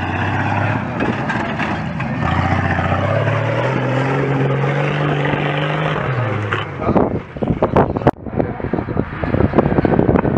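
Off-road 4x4 engine revving under load, its pitch climbing slowly and then falling away after about six seconds. After that, gusty wind buffeting the microphone with irregular crackles.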